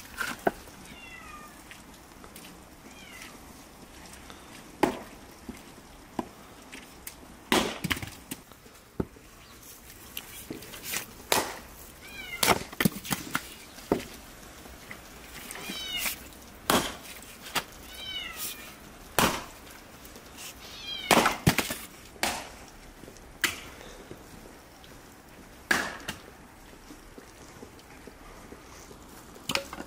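An axe chopping firewood: sharp strikes into a log on a chopping block every second or two as the wood is split. A cat meows several times in short calls between the strikes, mostly in the middle stretch.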